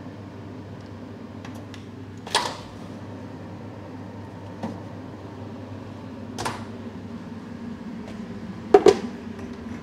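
Kitchen handling sounds: a few sharp knocks and clatters of utensils or dishes, with a quick double knock near the end, over a steady low hum.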